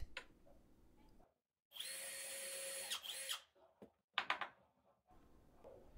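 Cordless drill boring a dowel-sized hole through a small block of scrap wood: a steady motor whine for about a second, then a brief second burst. A few light knocks follow.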